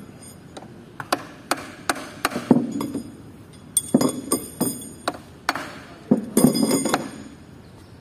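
Irregular metal-on-metal clinks and taps of steel tools and bolts against the steel housing of a Shantui SD16L bulldozer transmission being disassembled. About a dozen sharp strikes, those past the middle ringing on briefly.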